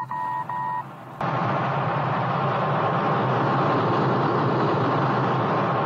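Two or three short electronic cockpit beeps, about two a second, then, just after a second in, a steady rushing engine noise of an Eagle transporter spacecraft in flight, a science-fiction sound effect.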